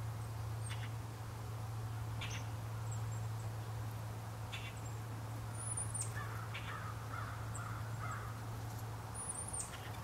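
Wild birds calling: short harsh calls roughly every two seconds, thin high chirps now and then, and a stretch of twittering in the second half, over a steady low hum.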